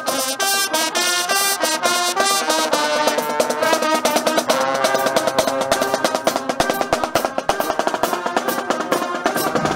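Marching band playing on the move: trumpets and other brass holding a tune over snare drums, bass drum and crash cymbals keeping a brisk beat.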